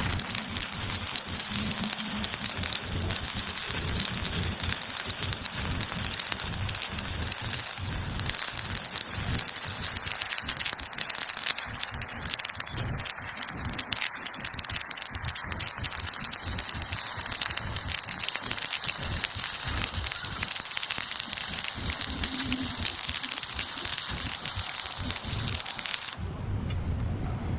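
Stick welding arc on a 6013 electrode running a horizontal bead: a steady crackling sizzle that cuts off suddenly near the end as the arc is broken.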